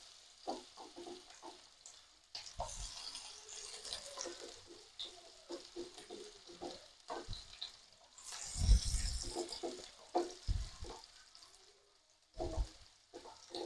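Chopped onion sizzling in hot sunflower oil in a nonstick pan, with light taps and clatter as crushed ginger, garlic and chopped vegetables are dropped in. A louder stretch of sizzling and knocking comes about eight seconds in.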